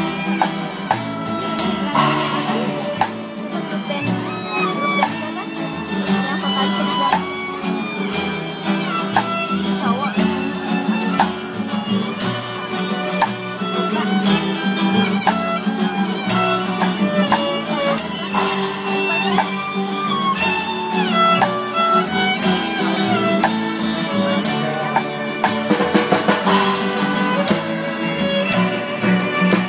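A busking string band playing live: a violin carries the melody over a strummed acoustic guitar and a double bass.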